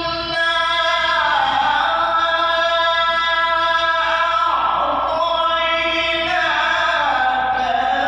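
A man reciting the Qur'an in a melodic chanting style into a microphone. He holds long notes that slide down and back up in pitch.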